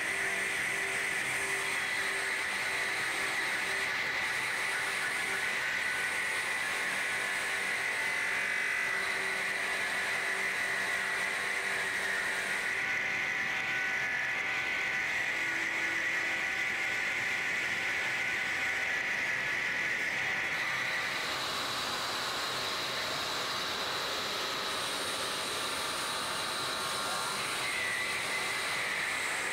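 Factory machinery running steadily: a continuous high whine over a hiss, shifting in tone a little before halfway and again about two-thirds of the way through.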